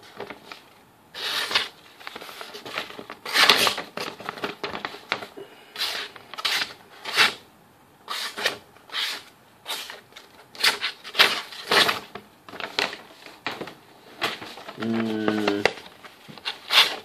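Boker Tuff folding knife's chisel-ground blade slicing through sheets of printed paper in a cut test: a series of short papery strokes, roughly one a second, with paper rustling between them.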